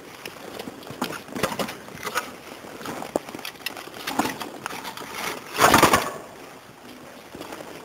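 Footsteps crunching on loose stone, irregular steps, with one louder scuffing crunch about six seconds in.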